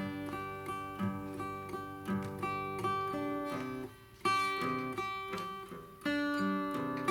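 Instrumental acoustic guitar music, notes plucked and strummed in a steady rhythm, with a brief lull about four seconds in.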